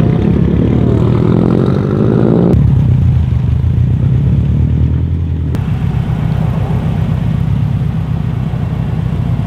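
Subaru WRX STIs with turbocharged flat-four engines rumbling as they drive slowly past at low revs, with a few rising revs in the first couple of seconds. The sound jumps abruptly about two and a half and five and a half seconds in.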